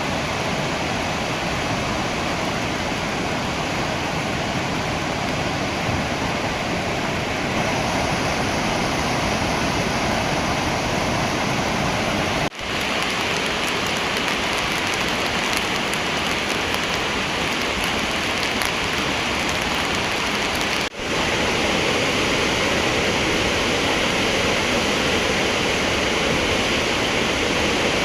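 Chenab River in flood, running above its danger level, with the water rushing as a loud steady noise. The sound is broken by two brief dropouts, about twelve and twenty-one seconds in.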